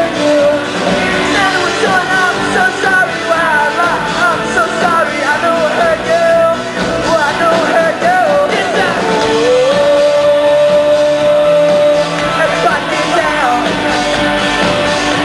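Rock band playing live: electric guitars and drums under a sung lead vocal. About nine seconds in, the voice slides up into one long held note of about three seconds.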